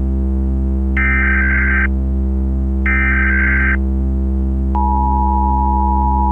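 Emergency Alert System tones over a constant low electronic drone. Two bursts of screechy SAME header data, each just under a second long and about two seconds apart, are followed from about five seconds in by the steady two-pitch EAS attention signal.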